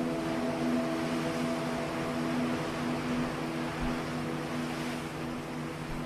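Sound of ocean waves and surf, a steady wash of hiss, over several held low tones of an ambient music drone.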